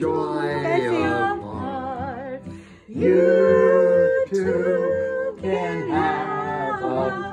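A woman singing a slow song to acoustic guitar, holding long notes with vibrato, with a short breath between phrases about three seconds in.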